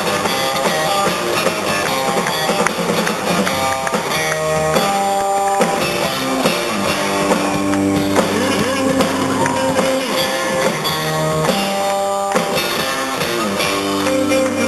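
Rock music from a band: strummed electric guitars over a drum kit, loud and steady, with no singing.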